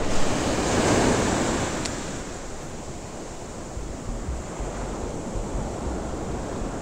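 Ocean surf washing up the beach, swelling louder about a second in and then settling to a steady wash.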